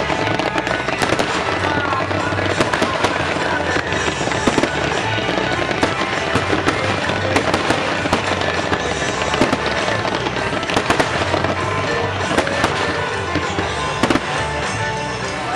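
Fireworks bursting and crackling in rapid, dense succession over a loud music soundtrack, as in a pyromusical display.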